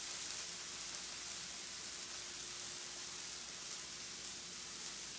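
Okra sizzling steadily in a little oil on a hot electric griddle as it finishes browning.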